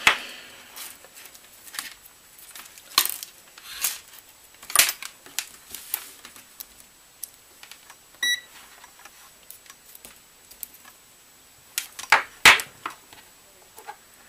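Sharp clicks and knocks of hard plastic and metal being handled on a table, as multimeter test probes and 18650 lithium-ion cells are set out for voltage checks. A short electronic beep comes about eight seconds in, and the loudest knocks come at the very start and again about twelve seconds in.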